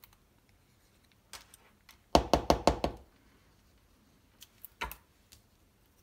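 A quick run of about seven knocks against the work table, followed nearly two seconds later by one more thump, with a few faint clicks of paper and glue applicator being handled.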